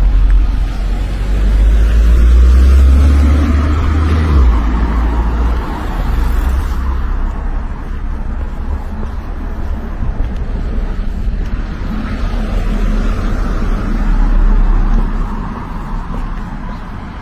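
Car and road noise: a low rumble under a steady hiss. The rumble is heaviest for the first few seconds, drops off suddenly, and swells again near the end.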